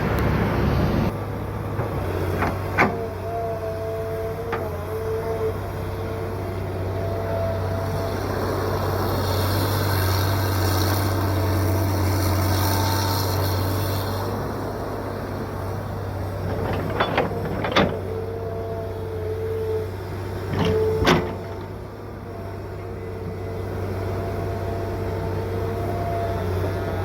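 John Deere 790ELC excavator running under load, a steady low diesel drone with a hydraulic whine that comes and goes. A hiss sounds through the middle, and there are a few sharp clunks, one near the start and a cluster about two-thirds through.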